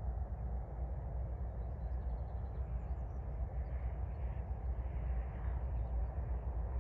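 Open-air field ambience: a steady low rumble with faint, high bird chirps scattered through it.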